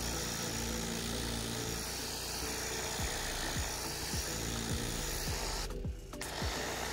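Pressure washer spraying a fibreglass boat deck: a steady hiss of the water jet with the washer's pump running underneath. The spray cuts out briefly near the end.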